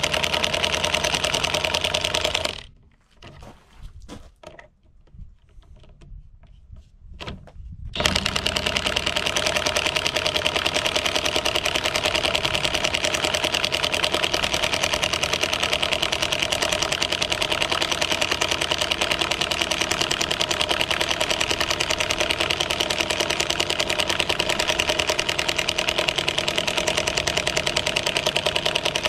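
DeWalt DCF899 cordless impact wrench hammering rapidly on its lowest speed setting, driving a 5/16 by 2½ inch lag bolt into a solid treated 6x6 post. It stops for about five seconds a few seconds in, then starts hammering again at the same rate.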